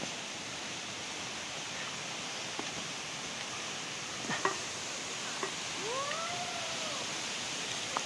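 A steady rushing outdoor noise with a few short animal calls over it: a brief sharp call about four seconds in, and a longer call that rises and falls in pitch about six seconds in.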